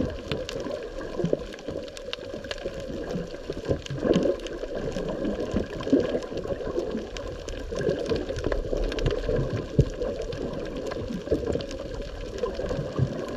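Underwater ambience picked up by a camera in its housing on the reef floor: a muffled, steady water rush with a constant crackle of faint clicks, swelling a little now and then.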